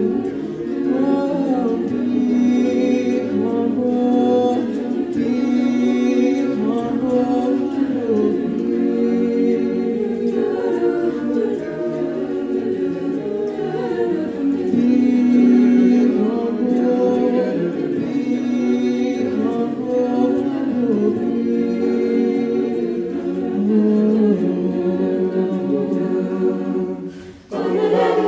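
Choir singing in harmony, holding long chords with moving vocal lines, with a brief break near the end before the singing resumes.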